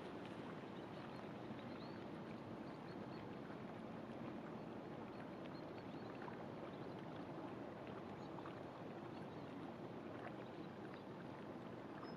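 Steady low drone of an inland cargo barge's engine under way, mixed with water noise.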